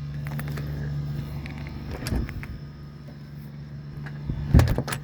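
A steady low mechanical hum with a few light clicks and knocks, and a heavier double thud about four and a half seconds in.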